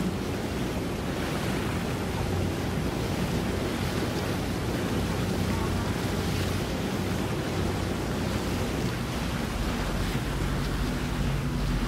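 Steady wind and water noise with a low, steady hum from a boat engine; a second, higher engine hum joins near the end.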